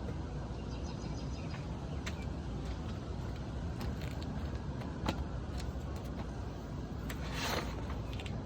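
Steady low vehicle rumble, with scattered sharp clicks and a short rustle near the end.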